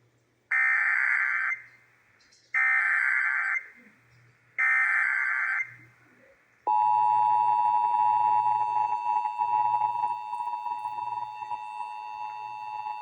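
Emergency Alert System activation tones: three one-second bursts of SAME digital header data, evenly spaced about two seconds apart, then, nearly seven seconds in, the steady two-tone EAS attention signal begins and holds. Heard as broadcast over AM radio.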